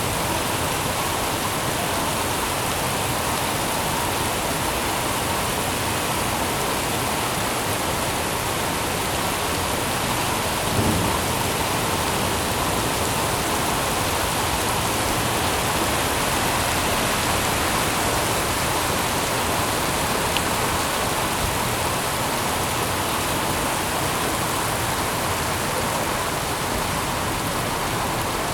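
Steady heavy rain falling, a dense even hiss, with one brief low thump about 11 seconds in.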